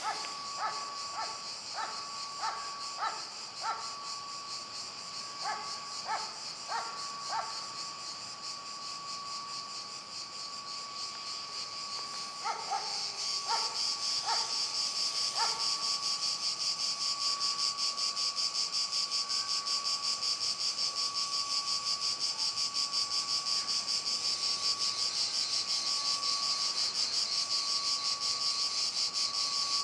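Crickets chirring in a steady, dense chorus that grows louder about twelve seconds in, over a thin steady tone. Three runs of short repeated chirps stand out, near the start, a few seconds later, and in the middle.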